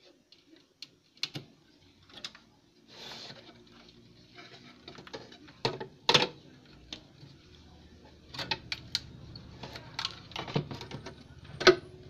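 Clicks, knocks and clatter of a Sharp CRT television's main board being worked loose and slid out of its cabinet by hand, with a short scrape about three seconds in and a quicker run of knocks near the end.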